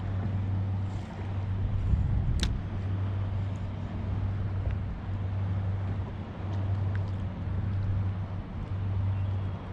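Pedal-drive kayak underway: a low hum from the pedal drive that swells and dips about every second and a half with the pedal strokes, over water and wind noise. One brief sharp high squeak about two and a half seconds in.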